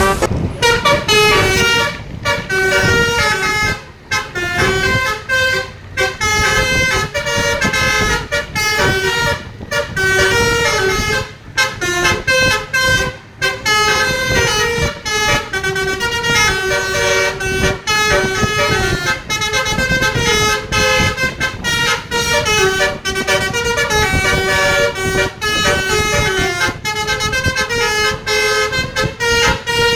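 Tour bus telolet horn, a set of multi-tone air horns, playing fast melodic tunes of short stepped notes in long runs with brief breaks between phrases.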